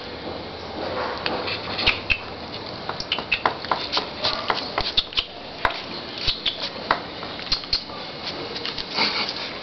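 A puppy scuffling and playing with an adult dog: many quick, irregular clicks and taps, with a few short high squeaks about two seconds in.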